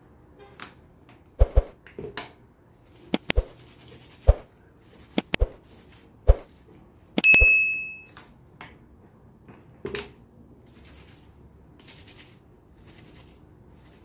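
A run of sharp clicks and knocks, then a single bright bell ding about seven seconds in that rings out for about a second, from an animated subscribe-bell overlay. Faint rubbing of a dish towel being scrubbed follows.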